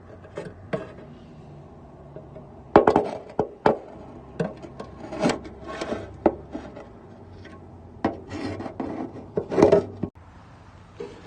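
Irregular scraping and rubbing strokes with occasional sharp knocks, a tool working inside a car's rusty chassis leg to clear out cobwebs and debris.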